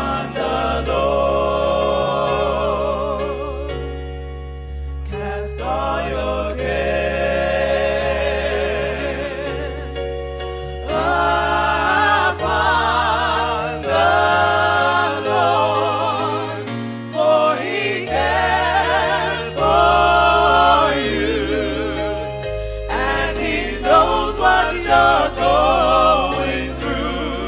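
Gospel music: voices singing long, wavering phrases over a sustained bass backing, pausing briefly between phrases.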